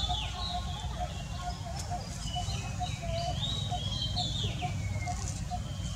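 High-pitched chirping calls that rise and fall in two short runs, over a short low note repeated evenly about twice a second and a steady low rumble.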